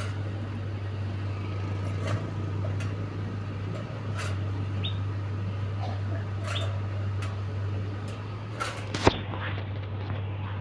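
Electric fan running with a steady low hum and a faint steady whine, with scattered sharp ticks every second or two, the loudest about nine seconds in, and a brief squeak about five seconds in: the strange noises the fan is making.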